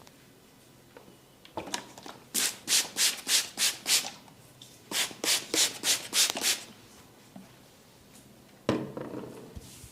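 Brisk rubbing strokes over hair and scalp during a head massage: two runs of about six quick strokes each, roughly three a second. A single sharper thump about three-quarters of the way through.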